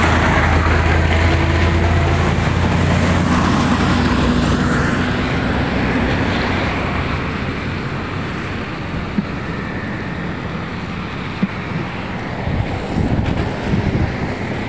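A motor vehicle's engine running close by and fading away over the first five seconds or so, over a steady hiss of traffic and wind on the wet road. Two brief knocks follow later.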